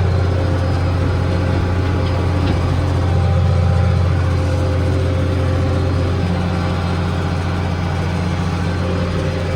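Tractor engine running steadily while pulling a 15-foot batwing rotary mower, a constant low drone that does not change pitch.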